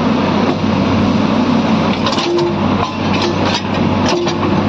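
JCB JS210 excavator's diesel engine running steadily under load while the bucket works the thrown track chain back onto the idler. Several metal clanks and knocks come through about halfway through, along with a couple of short whines.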